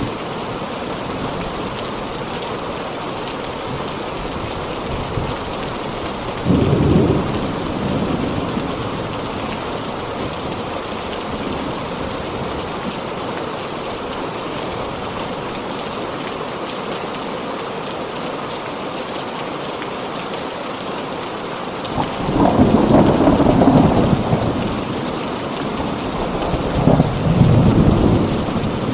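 Heavy rain falling steadily, with rolls of thunder rumbling three times: once about a third of the way in, and twice near the end.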